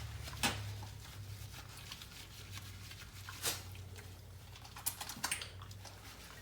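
Quiet wet rubbing and rustling as a short-haired dog is scrubbed with soap in a bathtub, with a few short sharp clicks over a low steady hum.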